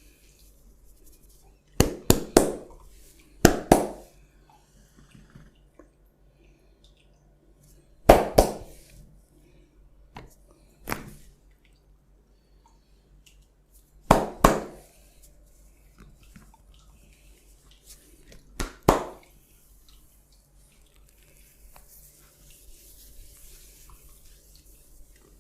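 Sharp smacks of a barber's hands on a client's skin during a massage, in quick clusters of two or three, about six times a few seconds apart.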